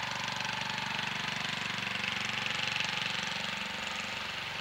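Riding lawn mower engine running steadily as the mower drives across the lawn, a low engine hum with a hiss above it, swelling a little about three seconds in.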